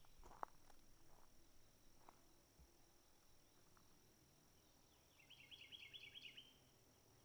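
Near silence over a faint steady high tone, with a couple of soft footsteps in the first two seconds. About five seconds in comes a short, rapid trill of high chirps lasting about a second and a half.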